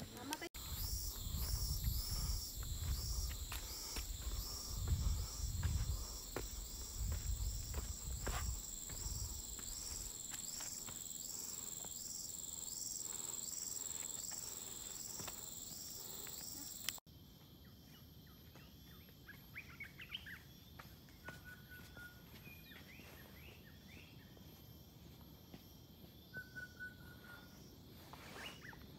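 Tropical forest ambience: a steady, high, pulsing insect drone with low rumbling during the first ten seconds. About two-thirds of the way in it cuts off abruptly, leaving quieter background with a few short bird chirps and whistles.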